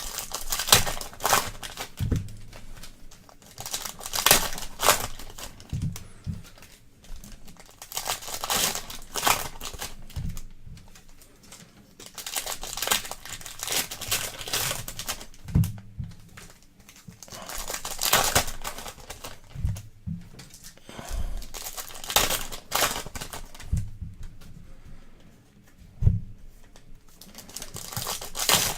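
Plastic wrapping of a trading card box and its packs crinkling and tearing in repeated bursts, with light knocks of handling in between, as the box is opened.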